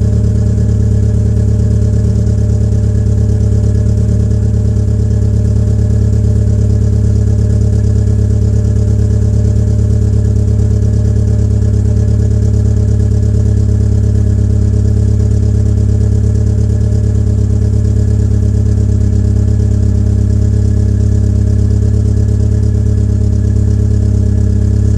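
Peugeot 807's 2.0-litre EW10J4 four-cylinder petrol engine idling cold with the rear silencer removed, running steadily and without revving. This is the rough cold idle that the owner puts down to tight valve lifters, a typical trait of some PSA EW engines.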